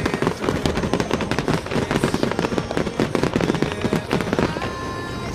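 Fireworks going off in a dense, rapid crackle of many overlapping bangs and pops. About four and a half seconds in, the crackle gives way to music with held tones.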